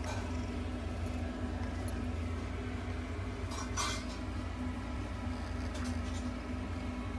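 Cat purring steadily as it is stroked, a low continuous rumble. A short rustle of handling against the blanket comes about three and a half seconds in.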